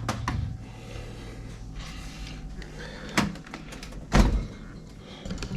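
LG refrigerator doors being shut: a few knocks and clicks, with a heavy low thud about four seconds in as a door closes.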